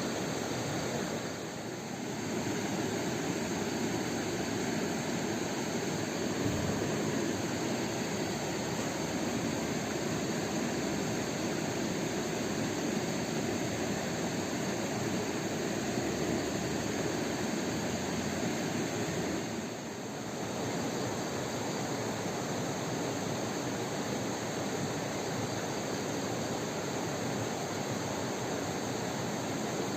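Steady rushing of flowing river water, an even noise that dips briefly twice.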